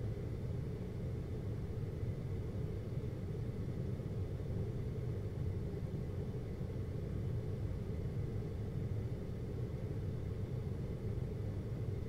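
GoldStar window air conditioner running with a steady low hum and the rush of its fan, unchanging throughout.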